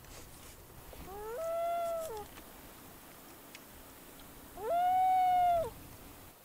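Common loon calling twice, each call about a second long, rising quickly to a steady pitch and dropping away at the end; the second call is louder.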